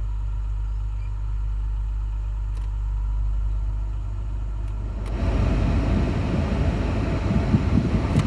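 Toyota Tacoma's engine idling with a steady low rumble. About five seconds in there is a click and the air conditioning comes on, adding a rush of blower air and a heavier, rougher rumble as the compressor loads the engine.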